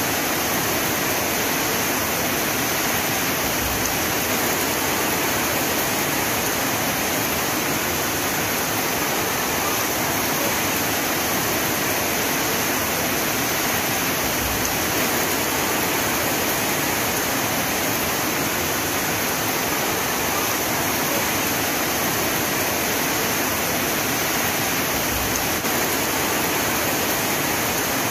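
Heavy rain pouring steadily: a dense, even rush of noise that never lets up.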